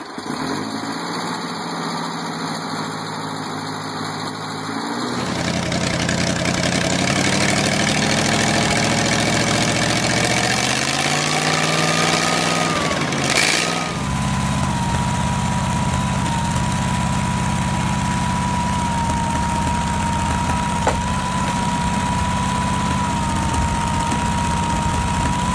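Wisconsin VH4D air-cooled four-cylinder gasoline engines running, heard in three separate clips. In the middle clip the engine speeds up and drops back. In the last, a steady high whine sounds over the engine.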